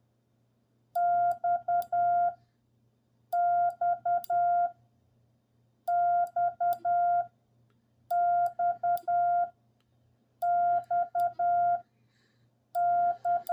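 Hand-keyed Morse code tone, a steady mid-pitched beep sending the letter X (dah-dit-dit-dah) six times over, one group about every two and a half seconds.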